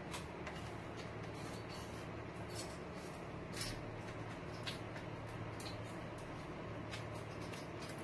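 A small parrot's claws and beak clicking and tapping on the plastic grille of an electric fan as it climbs, in irregular light clicks over a steady low hum; the sharpest clicks come about three and a half and four and a half seconds in.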